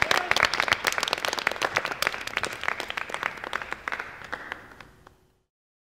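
Applause from a group of people clapping, fading out over about five seconds, in approval of the demands just read out.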